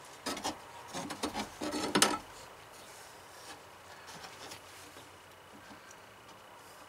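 A wooden fan mounting ring knocking and scraping against the edges of a cut-out in a van's sheet-metal roof as it is pushed into place: a quick run of knocks in the first two seconds, the loudest about two seconds in, then faint rubbing.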